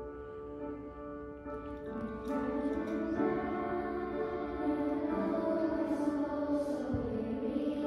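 Children's choir singing over an instrumental accompaniment of held chords; the voices come in about two seconds in and the music grows louder.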